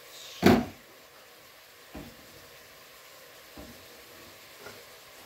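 Kitchen clatter of cookware being handled: one loud knock of something set down hard about half a second in, then three lighter knocks, over a faint steady hiss.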